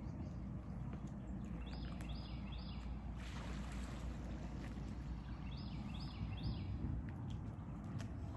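Outdoor lakeside ambience: a steady low rumble, with a bird calling in short phrases of three quick notes, repeated twice.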